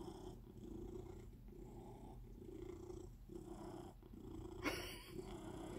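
Domestic cat purring close by, a soft steady rumble that swells and breaks about once a second with its breaths, while it begs for food. A short sharp noise comes about five seconds in.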